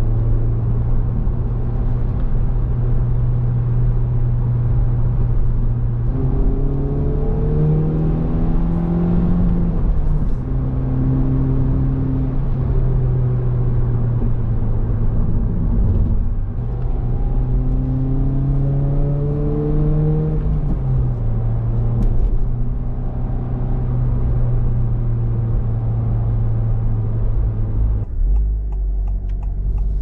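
Honda Civic Type R (FL5) 2.0-litre turbocharged four-cylinder engine heard from inside the cabin, running with its stock air filter. It climbs in pitch twice as it accelerates and drops back suddenly each time. Near the end the sound changes to a quieter, lower engine note.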